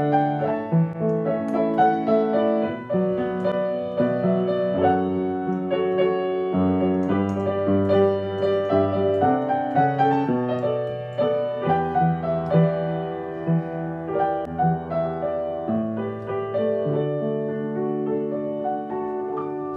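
Solo piano playing a slow, improvised by-ear arrangement of a pop song: sustained chords over a bass line that moves every second or two, growing softer toward the end.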